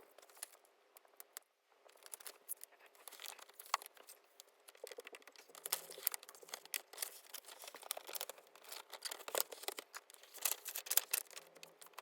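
Thin plastic protective film being peeled and pressed onto a laptop's casing: faint, scattered crinkling and crackling, sparse at first and growing busier after about two seconds in.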